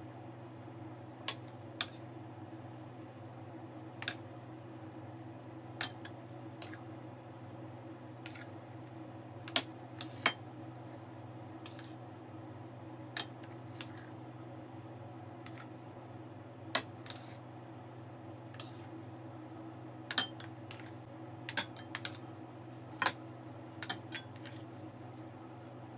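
Metal utensil clinking and tapping against a bowl: sharp, irregular taps every one to three seconds, a few in quick clusters near the end, over a steady low hum.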